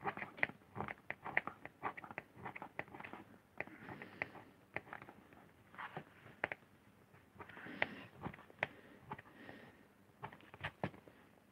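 Lino cutting gouge carving into a lino block: a faint run of short, irregular scratching strokes and small clicks.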